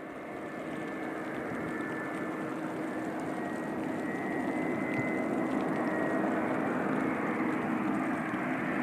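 Airbus A350-900 jet airliner approaching unseen through fog, its Rolls-Royce Trent XWB engines a steady rush with a whine, growing gradually louder as it comes nearer.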